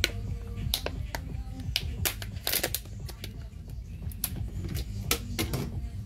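Soft background music with a steady low bass, under over a dozen irregular sharp clicks and taps.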